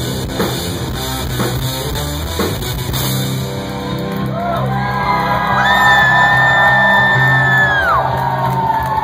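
Live rock band playing loud, with electric guitars, bass and a drum kit; drum hits stand out for the first three seconds or so. Then a long high note slides up and is held for about two seconds before falling away.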